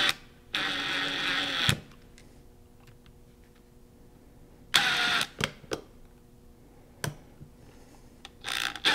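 Small cordless screwdriver's motor and gearbox whirring in three short bursts, driving the housing screws home.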